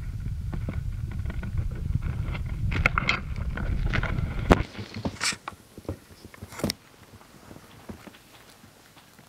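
Low rumbling handling noise with rustling of blankets, which cuts off about halfway through with a sharp click. After that come scattered soft rustles and ticks, then it goes quiet.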